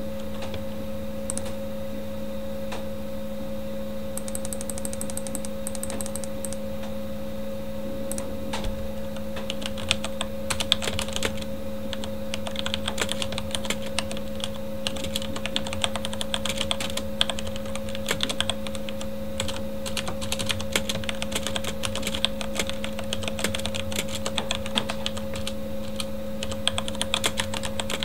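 Corsair K70 mechanical keyboard with Cherry MX Red linear switches being typed on. A few scattered keystrokes give way, about a third of the way in, to steady rapid typing. A computer fan hums steadily underneath.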